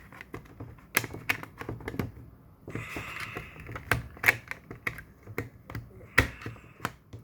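Irregular clicks and taps of hard plastic as a smoke detector and its 9-volt battery are handled and fitted, several a second, with a brief rubbing scrape about three seconds in.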